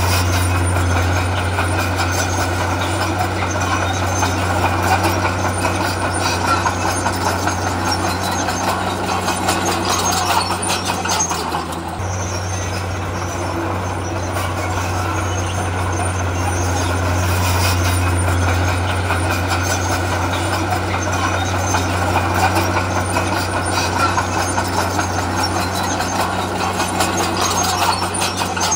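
Heavy diesel earthmoving machinery running steadily under load, a deep engine drone with rattling over it. The sound cuts abruptly to a similar stretch about twelve seconds in.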